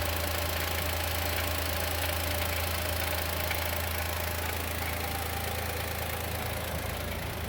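Chevrolet Onix 2020 naturally aspirated engine idling steadily while still cold, with a knocking from inside the engine that the owner suspects is a piston pin or a hydraulic valve lifter and expects to stop once the engine warms up.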